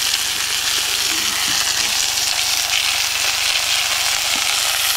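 Half a pig sizzling steadily in oil on the hot top of a wood stove: a constant frying hiss.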